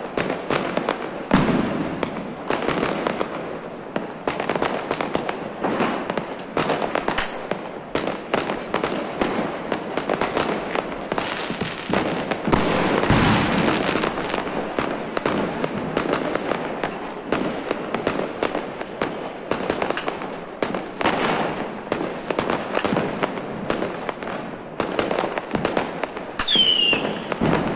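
Firecrackers and fireworks bursting without a break, many bangs overlapping into a dense crackle. A whistling firework falls in pitch near the end.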